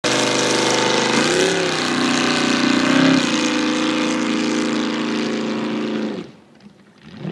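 Jet boat engine running hard on a pass, a steady engine note that wavers in pitch twice, then drops away sharply near the end.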